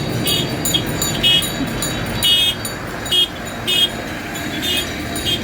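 A high-pitched vehicle horn tooting in short, uneven beeps, about ten of them, over the steady low rumble of passing vehicles.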